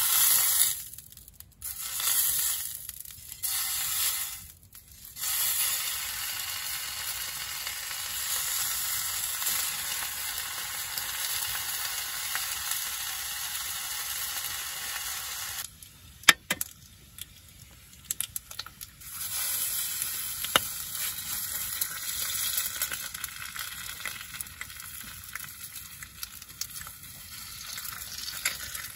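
Food sizzling on a hot grill plate over a portable gas stove: several loud bursts at the start, then a steady sizzle. The sizzle drops out for a few seconds a little past halfway, with a couple of sharp clicks, then resumes somewhat quieter.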